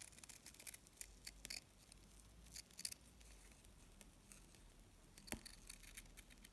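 Scissors snipping through satin ribbon in a run of short, faint cuts, trimming a small square of ribbon into a leaf shape.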